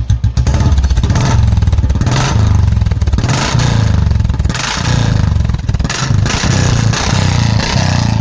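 Royal Enfield Bullet 350 single-cylinder engine, loud through its exhaust, revved repeatedly with throttle blips that swell and drop back, starting from a slow idle thump about half a second in.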